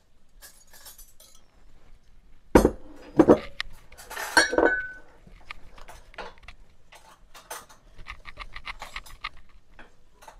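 Wire whisk beating liquids in a mixing bowl, clicking quickly and rhythmically against the bowl in the second half. A few loud clanks and clinks of dishes come a few seconds in, one of them ringing briefly.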